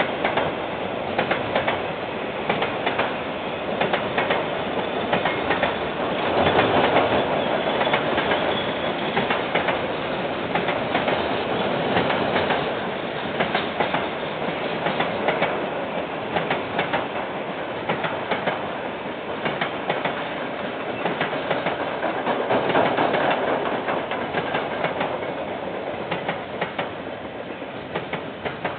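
KiwiRail freight train's wagons rolling past. The wheels make a steady rumble on the rails, with a constant run of clicks and clacks over the rail joints, swelling louder a couple of times.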